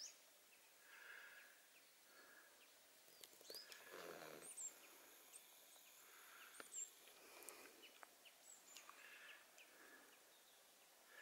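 Near silence outdoors, with faint scattered bird chirps: short high calls, some sweeping up or curling in pitch, spread across the whole stretch.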